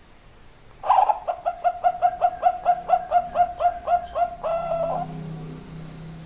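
Zebra dove (perkutut) cooing: a fast run of about twenty short repeated notes, roughly five a second, starting about a second in and ending in a longer held note that stops around five seconds in.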